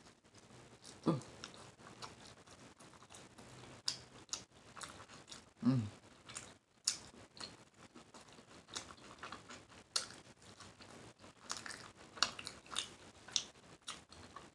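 Chewing a mouthful of Chipotle food with open-mouthed smacking, wet clicks scattered unevenly through. Twice, about a second in and again near six seconds, comes a short low vocal sound falling in pitch.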